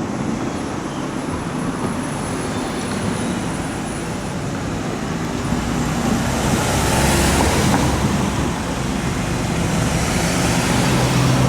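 Road traffic: motor vehicles passing close by over a steady street background, swelling twice, about seven seconds in and again near the end.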